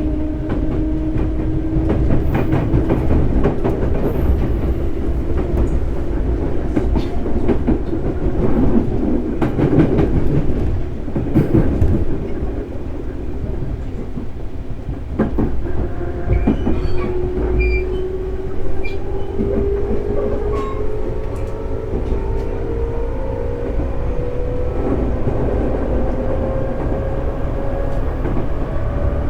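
JR 211 series 5600 subseries electric multiple unit running on the rails: a steady rumble with rail-joint clicks, and a traction-motor and gear whine that climbs steadily in pitch over the second half as the train picks up speed.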